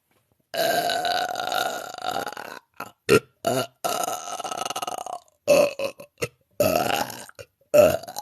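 A woman belching: one long burp lasting about two seconds starts about half a second in, followed by several shorter burps.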